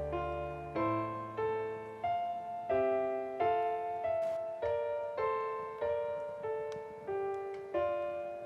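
Background music: a gentle piano melody, single notes struck about every two-thirds of a second, each fading before the next, with low bass notes only at the very start.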